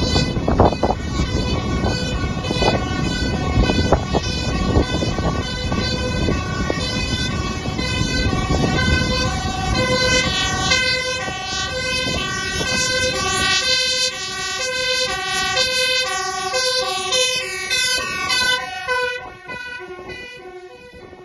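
Two-tone hi-lo siren of a fire-service DAF hook-lift truck, alternating steadily between two pitches over engine and road rumble. The truck passes close near the end: the siren's pitch drops and it fades away.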